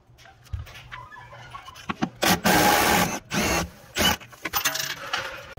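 Milwaukee FUEL cordless power tool with a 14 mm socket running in bursts as it spins off the upper shock-absorber mounting nut and bolt. There are a few short bursts, then a longer run about two seconds in, then two more short runs.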